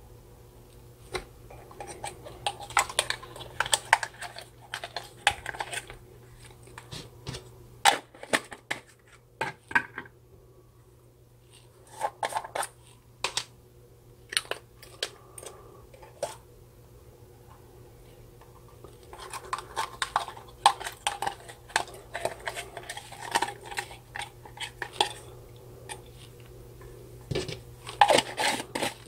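Slime being squeezed and pushed out of small plastic jars and a plastic bottle by hand: sticky squelches and crackles mixed with clicks and taps of the hard plastic containers and lids. The sounds come in bursts separated by short pauses.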